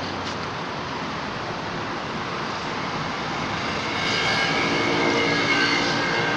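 Steady outdoor background hiss and rumble, with a passing engine drone swelling in about four seconds in, holding several steady tones.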